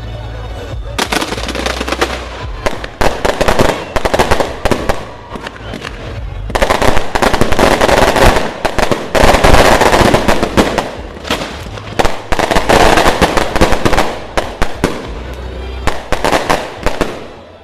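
Fireworks going off in a dense, rapid crackle of bangs, starting about a second in and heaviest through the middle, with music playing underneath.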